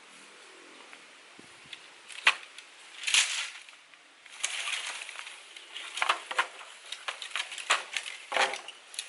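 A bundle of thin sticks is set down on stony ground with a rustling clatter, followed by a run of sharp clicks, knocks and crackles as the sticks and long bamboo poles are handled against the stones.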